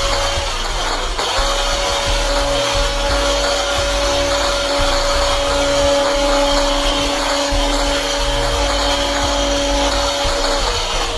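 Electric hand mixer running, its beaters whipping a thin, foamy batter of eggs, oil and buttermilk in an aluminium pot. The motor's steady whine drops out briefly about a second in and again near the end.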